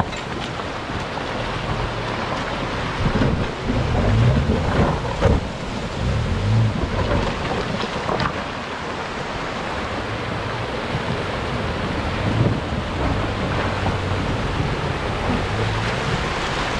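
Shallow rocky river rushing steadily, with a four-wheel drive's engine and tyres splashing and knocking over the stones, and wind buffeting the microphone. The low surges and thumps are heaviest a few seconds in and again about two-thirds of the way through.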